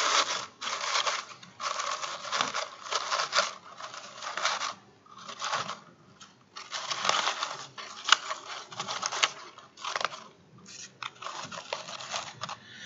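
Paper rustling and crinkling in irregular bursts with short pauses, as white shredded paper is stuffed by hand into a small clear container.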